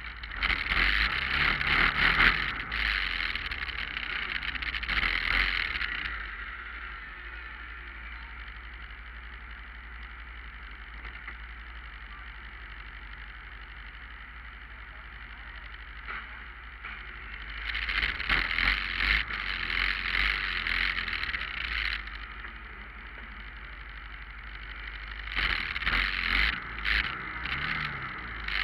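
Motorcycle engines idling in a slow parade column, with the engine noise swelling loud three times for a few seconds each: at the start, about two-thirds of the way through, and near the end.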